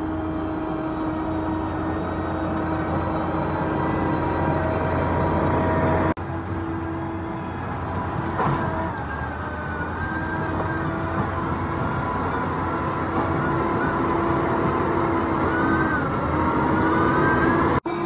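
Power Plus PP12G-IX motor grader's diesel engine running steadily under load while grading soil, with a higher whine that wavers in pitch in the second half. The sound breaks off abruptly about six seconds in and again near the end.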